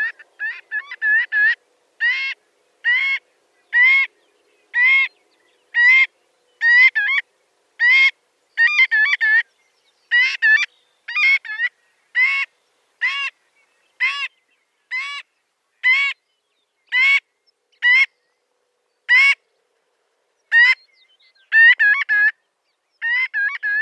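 Marbled godwit calling: a long series of loud calls, about one a second, with quick runs of short notes at the start and again near the end.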